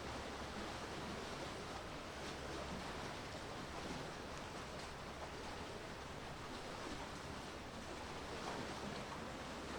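Steady sound of sea waves washing, with wind, and a faint low hum underneath.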